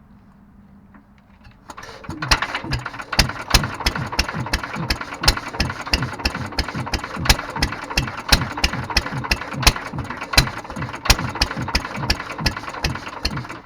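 Petter AS stationary engine catching about two seconds in on battery-and-coil ignition, then running with a steady, even firing beat, fed by its rebuilt Solex 26 FV carburettor with no choke.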